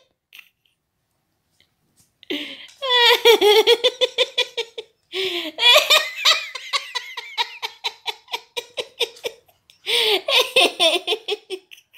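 A person laughing hard in three long bouts of rapid, high-pitched laughs, starting about two seconds in after a short quiet spell.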